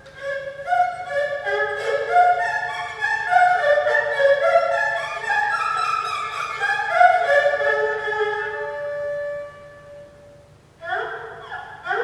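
Solo erhu playing a quick run of short, bright bowed notes that settles onto one long held note, then after a short drop in loudness breaks into quick upward slides near the end, the erhu imitating birdsong.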